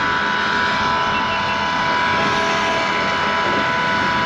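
Electric deep-drop fishing reel winding in line against a hooked fish: a steady motor whine with several held tones.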